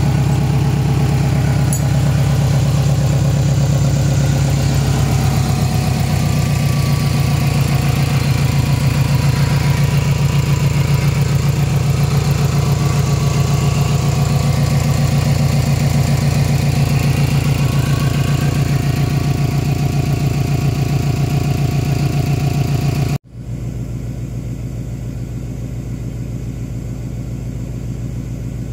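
2001 Subaru Forester's turbocharged 2.0-litre flat-four idling steadily with an even, fast pulse. About 23 seconds in it drops abruptly quieter and duller, as heard from inside the cabin.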